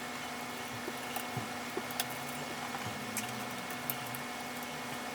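A screwdriver taking out the small screws that hold a laptop keyboard in place: a few light, scattered clicks and ticks over a faint steady hum.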